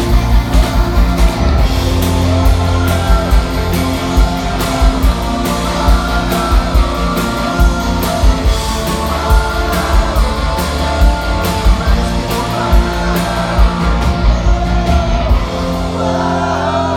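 Rock band playing an instrumental passage live: electric guitars and bass over a steady drum beat of about two hits a second. The cymbals drop back near the end.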